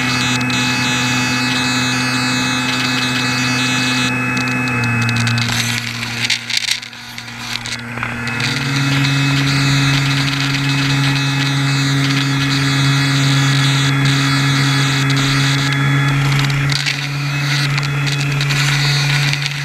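RC airboat's electric motor and air propeller running with a steady buzzing hum. The pitch drops about five seconds in and the sound eases off briefly, then the throttle comes back up to a slightly higher pitch that holds.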